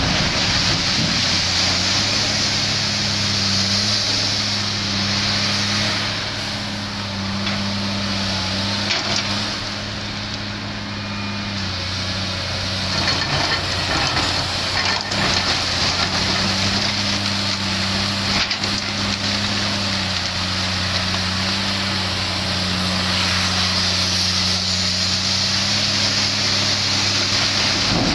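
Komatsu PC300 hydraulic excavator's diesel engine running steadily through a dig, swing and dump cycle, its hum shifting slightly in pitch as the load changes. A few faint knocks of coal and rock are heard over it.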